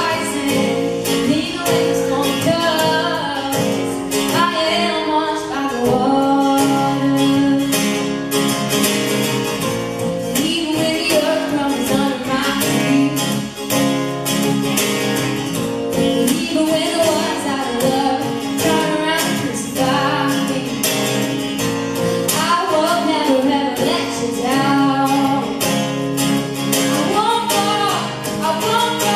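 Live worship song: a woman singing while strumming an acoustic guitar, with a drum kit keeping a steady beat behind her.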